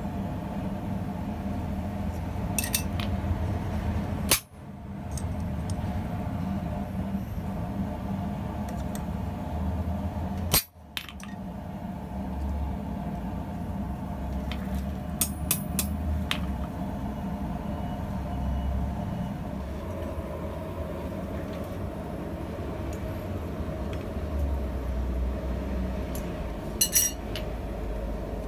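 A steady low drone runs throughout, with a few short, sharp metallic clinks of steel tongs and tools against the anvil, in small clusters about 3, 15 and 27 seconds in. The drone cuts out briefly twice.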